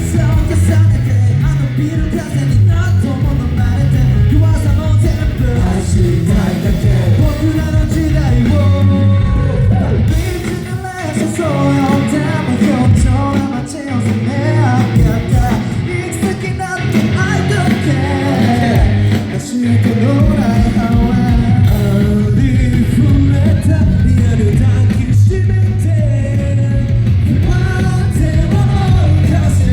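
Boy group singing a pop song live over loud amplified backing music. The deepest bass thins out for several seconds midway, then comes back in.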